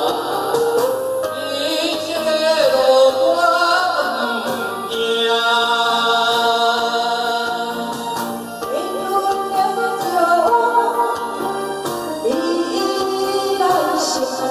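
A man and a woman singing a duet over a karaoke backing track: his line first, then hers in the second half.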